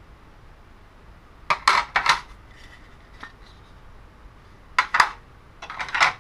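Hard plastic toy track tiles and parts clattering against each other as they are handled: a cluster of clicks about a second and a half in, and two more near the end.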